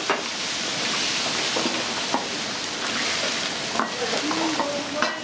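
Food sizzling steadily in a hot wok over high heat, with a few sharp clinks of the ladle against the wok.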